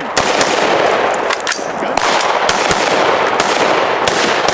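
Semi-automatic AR-15-style rifles firing from a firing line: several shooters at once, about a dozen shots at uneven intervals, some close together.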